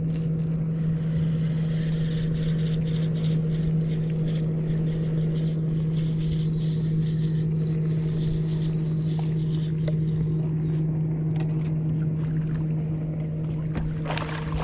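Boat motor running with a steady, unchanging hum.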